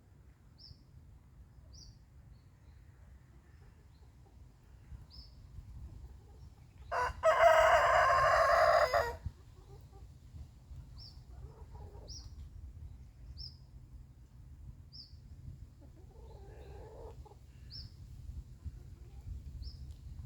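A rooster crows once, a single loud crow lasting about two seconds, about seven seconds in. Short high bird chirps come every second or two around it.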